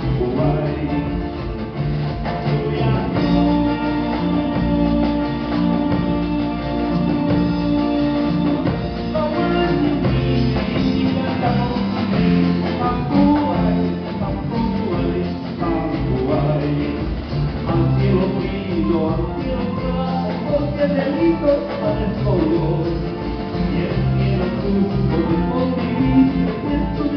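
Live band playing Andean folk-rock: a lead singer over guitars and a drum kit.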